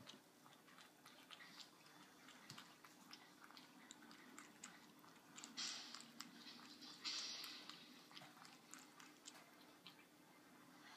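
Cat lapping milk from a cereal bowl: faint, quick clicking laps, with two brief louder bursts of noise around the middle.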